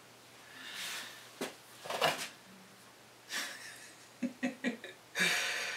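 A man breathing out and sighing, with a short chuckle of a few quick pulses about four seconds in, and a light click of something handled about a second and a half in.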